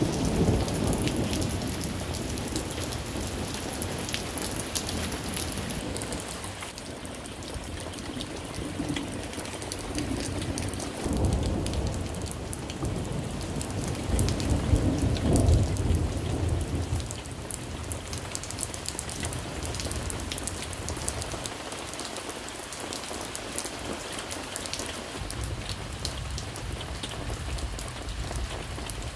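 Thunderstorm rain falling steadily and pattering on surfaces, with low thunder rumbling at the start and swelling again in the middle, loudest about halfway through.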